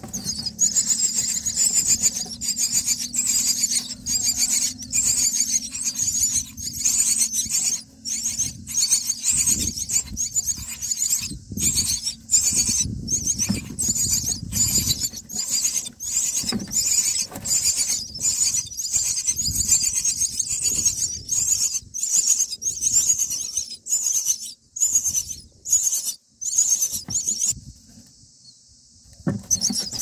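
Common myna nestlings begging for food: a continuous, rapid, high-pitched squeaking chorus that breaks off briefly near the end.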